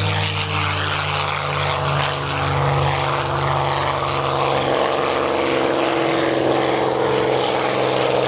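North American P-51D Mustang's Packard Merlin V-12 engine and propeller running at high take-off power, a loud steady drone whose pitch sinks slowly.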